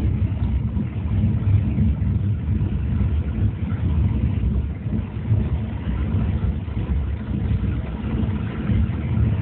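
Steady low rumble of a moving commuter train, heard from inside the passenger car.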